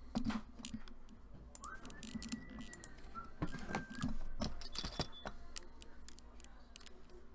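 A shrink-wrapped cardboard box being handled and turned over on a desk: scattered light clicks, taps and plastic crinkles.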